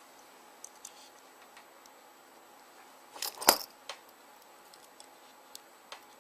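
Small clicks and taps from handling BlackBerry 9650 phone parts and tools during reassembly, with a brief loud cluster of clinks about three and a half seconds in.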